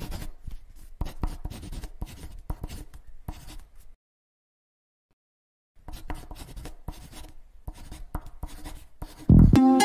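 Marker scribbling on a drawing surface in quick scratchy strokes, in two runs with a silent pause of about two seconds between them. Just before the end a low thump and upbeat ukulele music begin.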